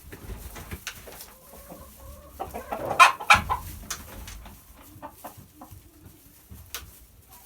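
Chickens clucking, with a loud burst of noise about three seconds in, the loudest moment.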